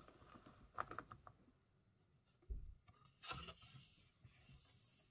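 Near silence with faint handling noises from a cardboard board book: a few light taps and rubs, then a soft rustle as a thick page is turned.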